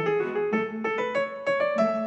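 Background piano music: a melody of quick, separate notes, about four or five a second.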